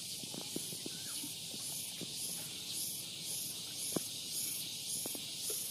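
Steady high-pitched insect drone pulsing about twice a second, with faint scattered clicks and knocks beneath it.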